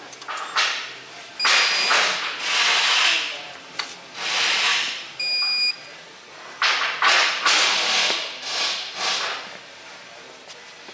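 Four or five loud, irregular bursts of hiss, from under a second to about two seconds long, with a short electronic beep about five seconds in.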